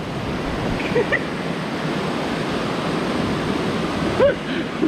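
Rain-swollen forest stream rushing and foaming over rocks, a steady rush of water. Short bits of a person's voice come through about a second in and again near the end.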